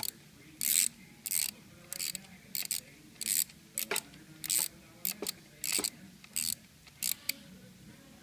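Hand socket ratchet clicking in short bursts, about one and a half a second, each burst the pawl ratcheting on the back-swing as a bolt is turned. The clicking stops near the end.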